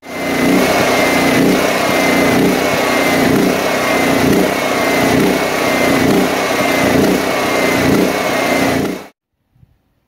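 DuroMax XP13000EH dual-fuel portable generator running and surging, its engine revving up and down in a repeating cycle: the carburetor is starved for fuel by a faulty fuel selector switch. The sound cuts off suddenly about nine seconds in.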